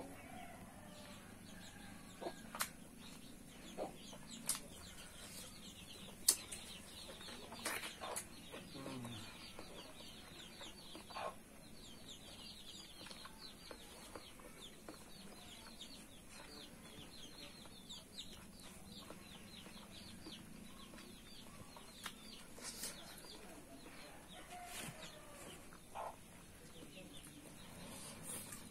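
Close-up eating sounds: a person chewing spicy pork belly and rice eaten by hand, with wet mouth smacks and scattered sharp clicks.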